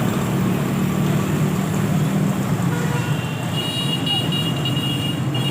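Steady road-traffic noise with vehicle engines running. A high, steady tone joins about three seconds in.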